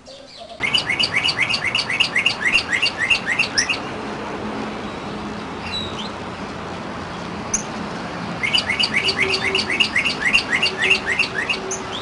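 A songbird singing two bouts of rapid, evenly repeated down-slurred whistles, about four or five a second, each bout lasting about three seconds, over a steady background hiss and hum.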